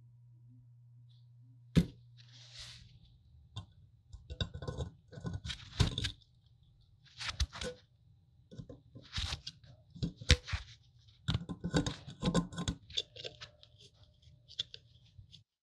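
Metal tools scraping, crunching and clicking in short bursts against rusty metal: a steel pick and needle-nose pliers working at broken bulb bases stuck in the sockets of an old electric railroad lantern. A sharp click comes about two seconds in.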